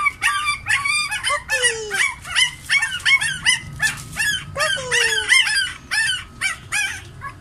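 Newborn Doberman-cross puppies crying and yelping as they are handled: a rapid run of short, high, rising-and-falling squeals, about three a second, with a couple of longer falling whines.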